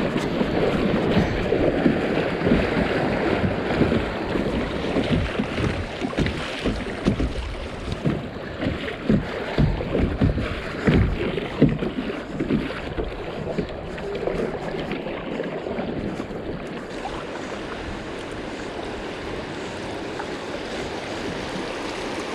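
Kayak on a river: paddle splashes and knocks against water and hull, with rushing water and wind on the microphone. The splashing and knocking are busy in the first half, then settle into a steadier water hiss.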